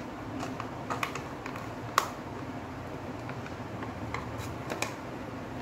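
A stick scraping and tapping against a plastic mixing cup as the leftover epoxy resin is scraped out into a mould: a scatter of light, irregular clicks, with one sharper click about two seconds in.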